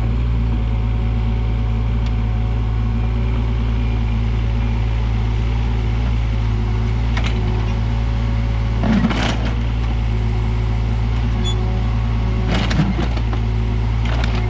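Kato 35 mini excavator's diesel engine running steadily under load while digging out a boulder, with a few short knocks, the loudest about nine seconds in and another near thirteen seconds.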